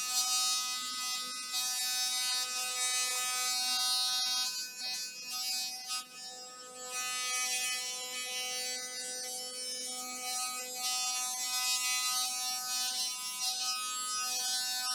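Philips Sonicare DiamondClean sonic toothbrush running after a repair: a steady high-pitched buzz whose level dips for a couple of seconds midway. The repairer judges it much better.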